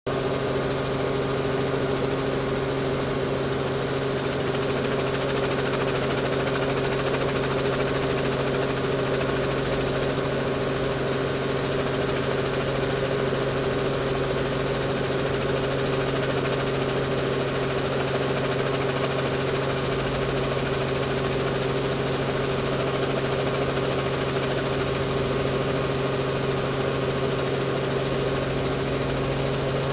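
Light helicopter's engine and rotor running steadily on the ground, heard from inside the cabin as an even, unchanging drone with a steady hum.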